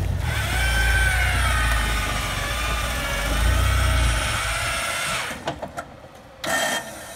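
Electric winch on a Jeep Wrangler's front bumper pulling in its line under load: a whine whose pitch wavers as the strain changes, over the low rumble of the Jeep's engine. The winch stops about five seconds in, followed by a few clicks and a short burst of noise near the end.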